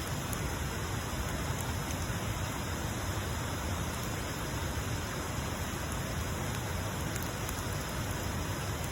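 Wood bonfire burning: a steady hiss with a few sparse, faint crackles.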